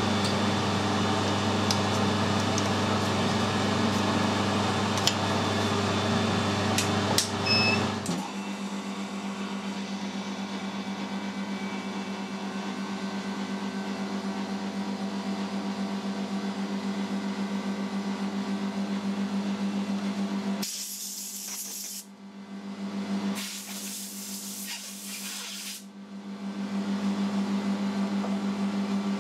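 Steady hum of running workshop machinery with the lathe chuck at rest. A deeper part of the hum cuts off about a third of the way in, and two short bursts of hiss come near the end.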